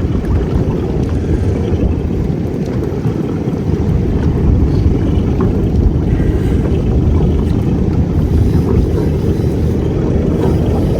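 Boat engine running steadily, a low continuous drone, heard aboard the boat.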